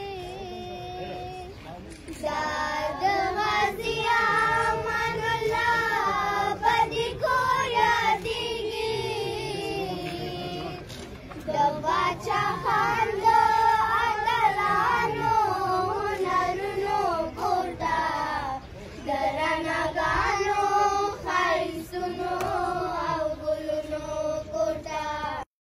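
Children singing together in long, high-pitched phrases with held, wavering notes, pausing briefly between phrases.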